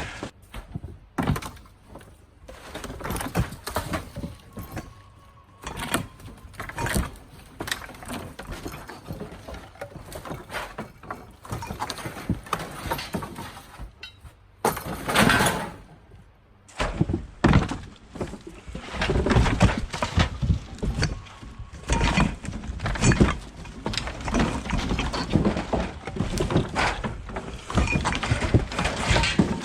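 Demolition of a shed with a sledgehammer and crowbar: irregular knocks, cracks and clatter of breaking pieces, coming thickest in the second half.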